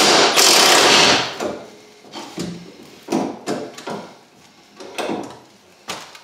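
Cordless impact wrench running on a bumper bolt, stopping about a second in, followed by several separate clanks and knocks of tools and metal parts.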